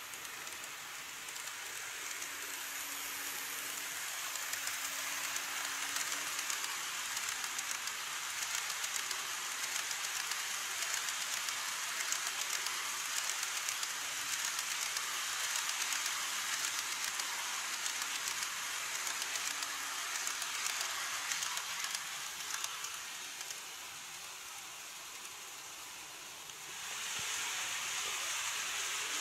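A model train hauling blue 14-series coaches rolls along plastic viaduct track. Its wheels make a steady rushing hiss with fine rapid clicking, which builds as the train passes and eases off after about 22 s. Near the end, after a scene change, a louder, steadier hiss sets in.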